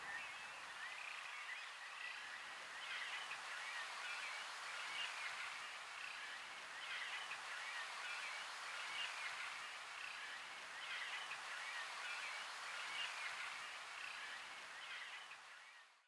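A chorus of many animal calls at once, swelling in bouts about every two seconds and fading out at the very end.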